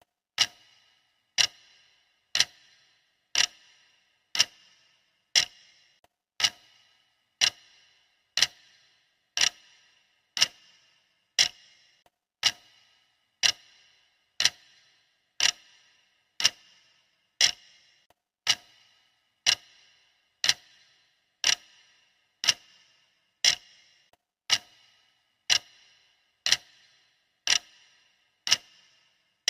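A clock ticking steadily, one sharp tick a second, each tick with a short bright ring.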